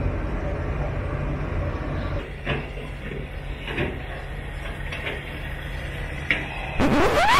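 Steady low rumble during diesel fueling that eases about two seconds in, then a few separate clicks as a chrome fuel cap on a diamond-plate aluminum fuel tank is handled. Near the end comes a loud rising whoosh sound effect.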